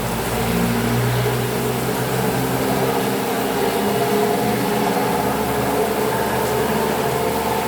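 Steady rain under a continuous low rumble that holds several steady tones.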